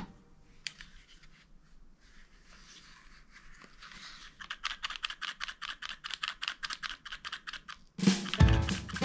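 A fast, even run of light clicks, about six a second, starts about halfway through and grows louder after a quiet stretch. Loud music starts about a second before the end.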